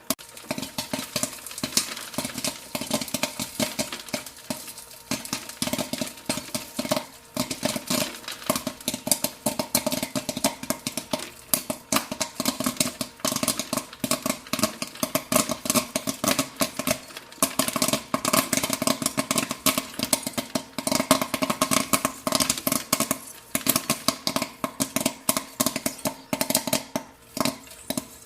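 Popcorn kernels popping: many quick, irregular pops in a thick, continuous run, over a steady low hum.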